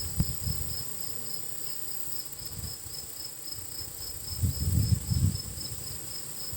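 Honeybees buzzing at the hive entrance as workers fan air into the hive. The buzz swells louder for about a second past the middle, as bees fly close. A steady, pulsing high trill of insects runs behind it.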